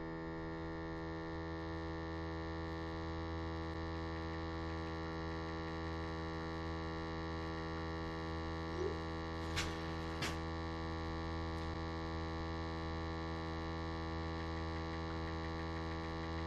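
Steady electrical mains hum made of many even tones. Two sharp clicks come a little after halfway.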